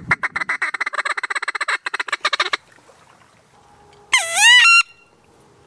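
Waterfowl calling: a fast run of chattering notes for about two and a half seconds, then after a pause one loud two-part honk about four seconds in.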